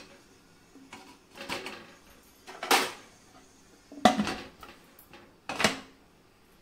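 A metal pressure cooker lid being fitted onto the cooker and twisted shut. Four short metal clanks and scrapes come about a second or so apart.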